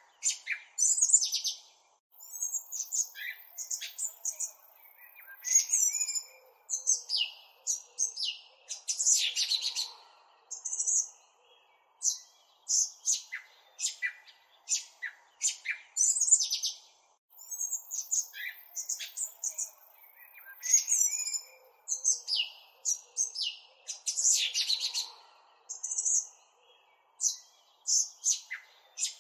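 Small birds chirping and calling in quick, varied high notes, one busy chorus of twitters and short downswept calls. The birdsong is a looped track that repeats itself about every fifteen seconds.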